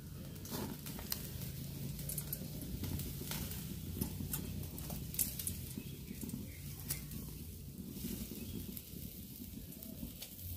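Pork ribs grilling on a wire rack over charcoal: irregular crackles and pops from the coals and dripping fat, over a low steady rumble.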